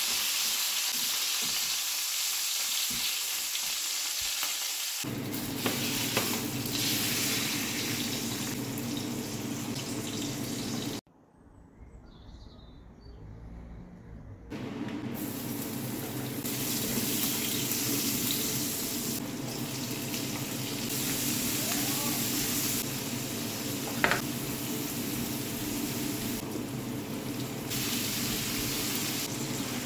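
Food sizzling as it fries in a pan, a steady hiss that drops away sharply for about three seconds partway through, with a single sharp click later on.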